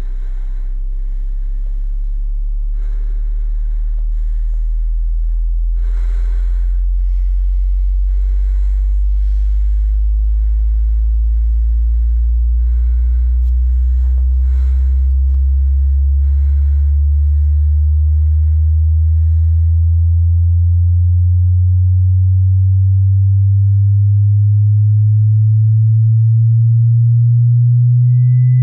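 A low synthesized drone tone that climbs in pitch in steps and grows steadily louder. Over its first two-thirds come scattered muffled rustles and breaths of a struggle under a pillow, and a thin high tone starts right at the end.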